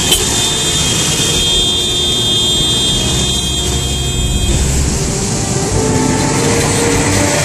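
Busy road traffic with cars, a bus and a van passing close on a wet road, a steady engine rumble. A steady high whine runs through the first half and fades out partway through.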